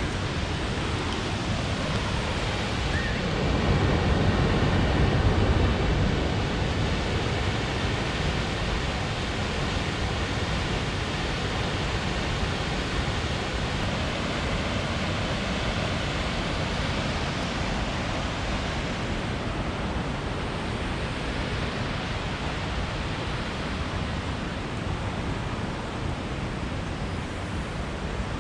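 Toketee Falls pouring into its pool: a steady, even rush of falling water. It grows a little louder for a couple of seconds about four seconds in.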